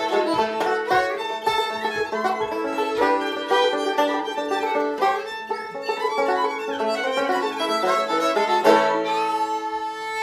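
Fiddle and resonator banjo playing a lively tune together in many quick notes. About nine seconds in they land on the closing chord, and the fiddle holds a long final note as the banjo stops.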